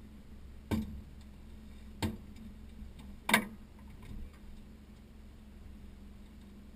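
Three sharp knocks about a second and a quarter apart in an aluminum fishing boat, the third the loudest, over a steady low hum.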